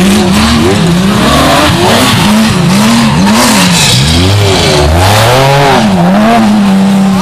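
Racing engines of single-axle-tractor racers revving up and down again and again as they slide through a dirt-track bend, loud and close, with a second engine joining in about four seconds in.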